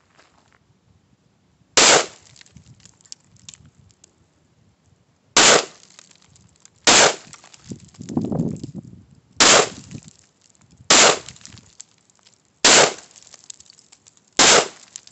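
Seven rifle shots from a Riley Defense AK-47 firing 7.62x39 rounds, spaced roughly one and a half to three and a half seconds apart, with a duller, lower noise about eight seconds in. The hits fail to set off the Tannerite target, so no explosion is heard.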